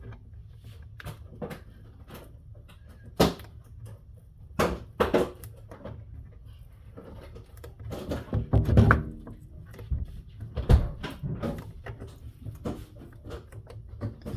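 Handling noise as skateboard griptape is picked at and peeled off the deck by hand: scattered sharp knocks and short scrapes, with a louder run of them about eight to nine seconds in.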